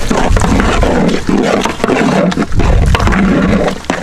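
Rice grains poured into a large pot of hot water, splashing with a steady hiss, over a loud low rumble that swells and dips.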